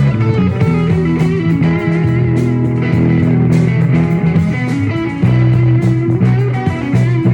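Live band jamming an instrumental rock groove: electric guitar lines over bass and drums.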